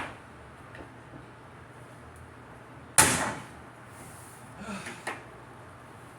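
Sharp knocks from work on aluminum sheeting: one right at the start, a louder bang with a short ring about three seconds in, then a few lighter knocks near the end.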